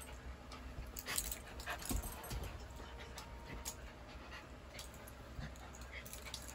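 Husky puppy panting quietly, with a few faint scattered clicks and rustles.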